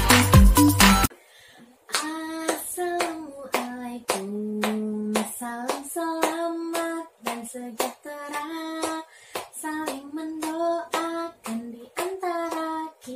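Electronic intro music cuts off about a second in. After a short pause, a woman sings a song unaccompanied, clapping her hands in time as she sings.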